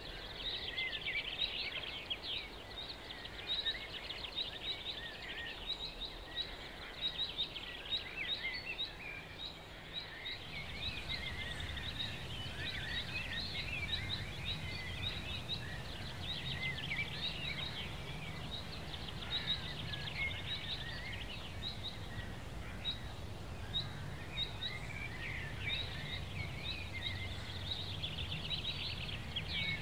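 Outdoor ambience of many small birds chirping and twittering, with a low steady hum that comes in about a third of the way through.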